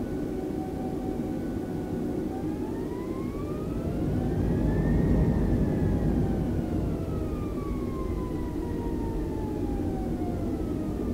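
Airbus A320's jet engines spooling up during taxi: a whine rises in pitch for about three seconds, then winds back down over the next five, over a steady low rumble that is loudest at the peak.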